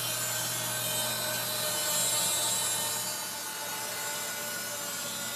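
Bandsaw running and cutting a curve through a stack of maple and walnut boards, the blade noise over a steady motor hum. The cutting gets a little quieter about three seconds in.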